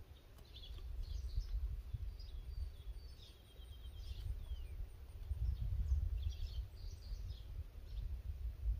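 Songbirds chirping and calling, with a quick trill of repeated notes about three to four seconds in. Under them is a low, gusting rumble of wind on the microphone.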